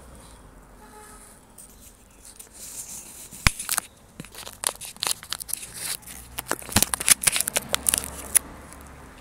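Irregular crackling and rustling, a dense run of sharp clicks that starts about two and a half seconds in and stops shortly before the end.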